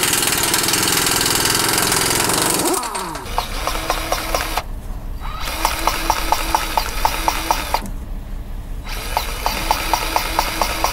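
Cordless grease gun pumping grease into a tractor drawbar hitch pin in three short spurts, each a rapid clicking pulse of about five strokes a second over a low motor hum. Before that, a loud steady noise winds down with a falling pitch about three seconds in.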